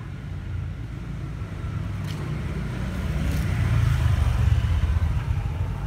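Low rumble of road traffic, a vehicle passing and swelling to its loudest about four seconds in, with two faint clicks.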